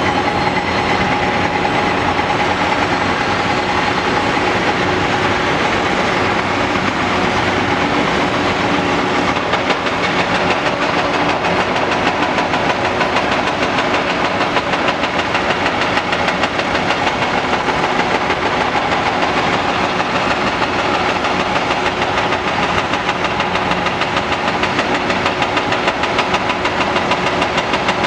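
Caterpillar 330D L excavator's diesel engine running steadily under working load, with a steady hydraulic whine and a fast rattle as it digs and swings broken concrete.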